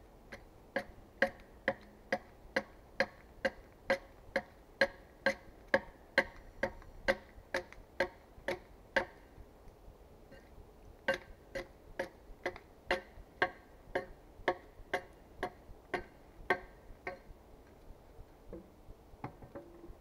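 Small axe hewing the top of a log flat: steady chopping strikes about two a second, each with a slight ring. The strokes stop briefly near the middle, then resume.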